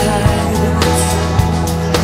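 Background music with a steady drum beat over sustained bass and chords.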